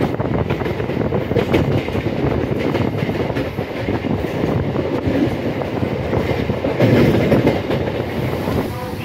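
Electric multiple-unit local train running along the track: a steady rumble of wheels on the rails with a rapid clatter of clicks.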